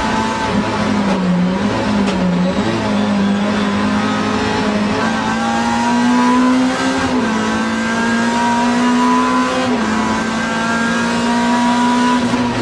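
Alfa Romeo racing car's engine heard from inside the cockpit at full racing pace. The revs dip and recover twice in the first couple of seconds, then climb slowly and drop in steps at two gear changes, over steady road and wind noise.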